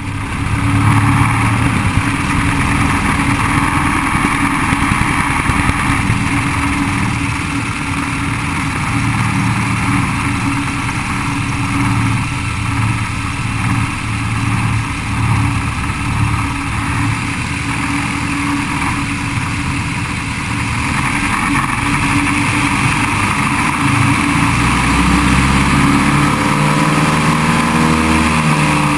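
Small propeller airplane's engine running steadily at low power while taxiing, with propeller and airflow noise. Near the end the engine note rises as power comes up.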